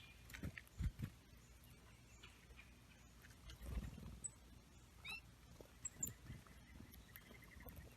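A few short, high chirps and call notes from small songbirds, with some soft, low thumps in between.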